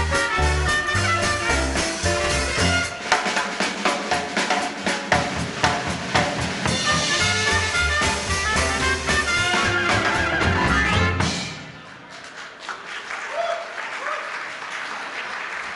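Small swing band of trumpet, saxophone, piano, bass and drums playing the last bars of a tune. The music stops about eleven seconds in, and audience applause follows.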